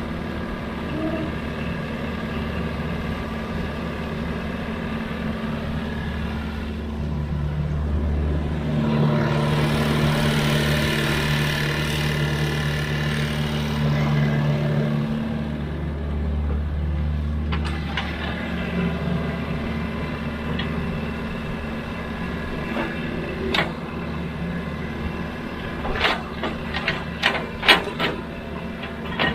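Diesel engine of a Sany excavator running steadily, working up louder under hydraulic load for several seconds near the middle. Near the end come a run of sharp knocks and clanks, typical of the bucket striking rock or metal.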